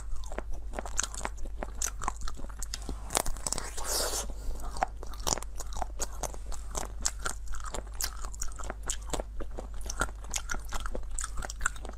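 Biting and chewing a frozen yellow mango-shaped ice treat: many sharp, irregular crunches and crackles as the frozen shell breaks between the teeth.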